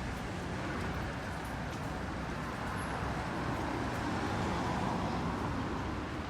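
City street traffic noise: a steady wash of passing road vehicles, swelling a little about four to five seconds in as one passes closer.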